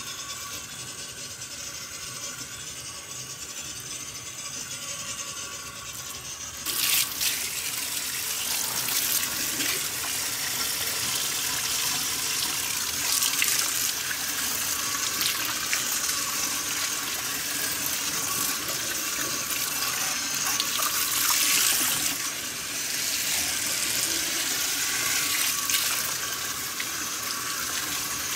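Water running from a tap into a sink basin: a steady hiss at first, turning abruptly louder and splashier about seven seconds in.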